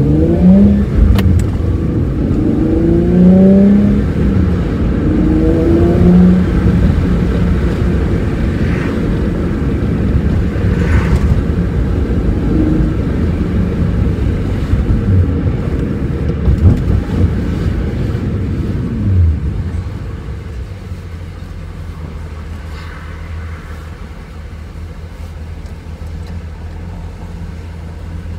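Infiniti G37's V6 with an Ark Grip cat-back exhaust, heard from inside the cabin. Its note rises and drops several times in the first six or seven seconds as the car pulls through the gears, with upshifts around 3,000–3,500 rpm. It then runs more steadily and settles to a quieter, steady idle about twenty seconds in.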